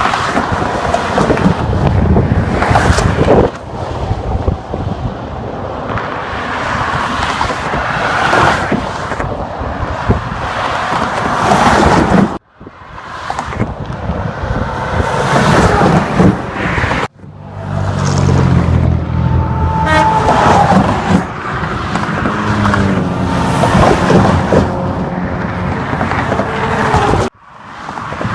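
Heavy highway traffic, trucks and cars, passing at speed close by: a continuous loud rush of engines and tyres. It drops out abruptly three times.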